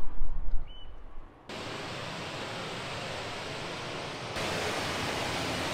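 Steady rush of water pouring over a reservoir dam's stone overflow weir, growing louder about four seconds in. A low buffeting rumble on the microphone comes first, for about the first second and a half.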